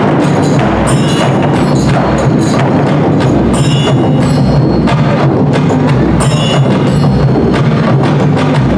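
Loud, steady percussion music in the Taiwanese temple-procession style: drums and wood block in a driving rhythm, with a ringing metal stroke about every three seconds.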